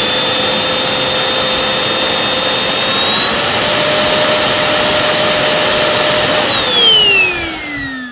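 Moosoo XL-618A cordless stick vacuum motor running with a steady high whine, stepping up slightly in pitch about three seconds in as it is switched to its higher power setting. Near the end it is switched off and the whine falls as the motor spins down.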